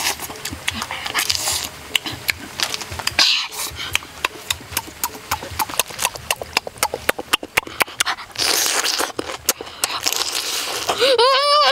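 Close-up eating noises: rapid wet lip-smacking and chewing clicks with a few hissing sucks and slurps as cooked shellfish and chili sauce are eaten. Near the end a wavering, pitched sound begins.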